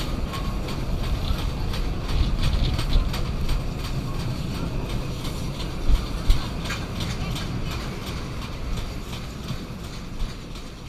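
Train carriage of the North Borneo Railway steam train rolling along the track: a steady low rumble of the wheels with clicking over the rails, heard through an open carriage window. Two sharper knocks about six seconds in.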